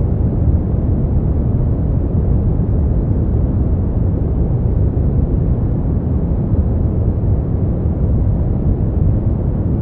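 Steady, smoothed brown noise: a constant deep rumbling hiss, strongest in the low end and dull above, with no change or events.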